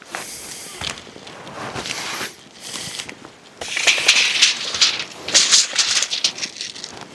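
Footsteps crunching and crackling over the woodland floor, getting louder about halfway through.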